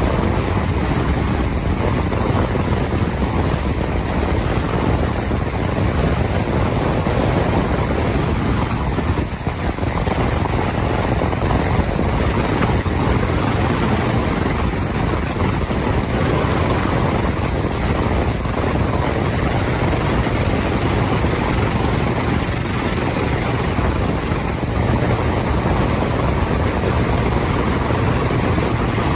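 Morantz M-115 ultrasonic cleaning tank running with a part submerged: a loud, steady rushing noise from the ultrasonic cavitation in the cleaning bath, with a brief dip about nine seconds in.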